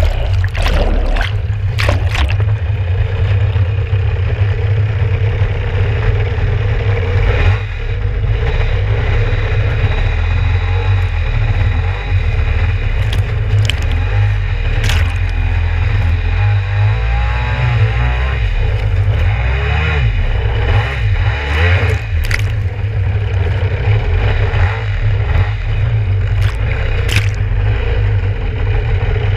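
Kawasaki 650SX stand-up jet ski's two-stroke engine running, heard through a camera mounted on the hull, with water splashing and slapping against it several times.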